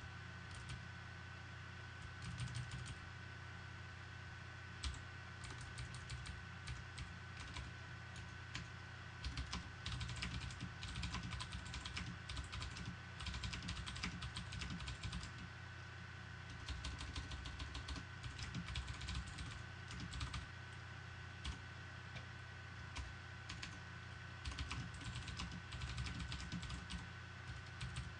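Typing on a computer keyboard: runs of quick keystrokes with short pauses between them, over a steady low hum and a thin high tone.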